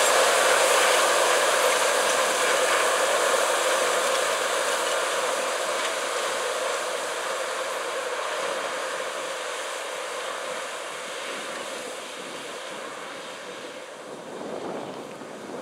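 Case IH Steiger 370HD's turbocharged six-cylinder diesel working under load, together with the noise of an Ecolo-Tiger disk ripper's discs and shanks tearing through corn stalks. The sound fades steadily as the rig pulls away. Wind gusts hit the microphone near the end.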